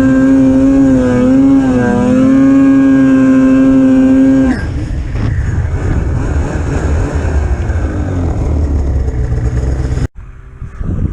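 Polaris Pro RMK 800 snowmobile's two-stroke twin engine held at high revs with a steady whine that dips slightly a few times, then coming off the throttle about four and a half seconds in to a lower, rougher running. The sound cuts out abruptly for a moment near the end.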